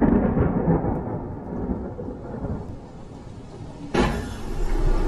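Thunder sound effect: a sudden crack that rumbles and slowly fades, then a second loud crack about four seconds in with a deep, heavy rumble.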